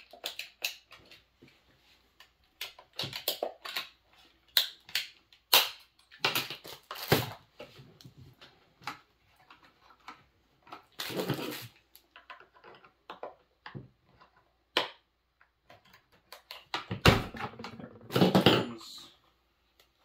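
Plastic clicks, knocks and scraping from hands prying the stuck plastic top cover off a Proyama chainsaw, with a hard knock about 17 seconds in followed by a longer scrape as the cover comes free.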